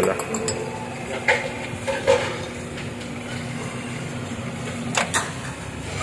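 Hanabishi microwave oven running on its DIY-repaired high-voltage socket, its transformer and magnetron giving a steady low hum, a sign the oven is heating again. About five seconds in the hum stops and two sharp clicks follow close together, as of the door latch opening.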